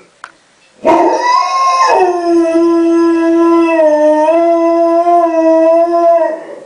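Alaskan Malamute howling: one long howl that starts about a second in on a higher note, drops in pitch and is then held nearly level until it fades near the end.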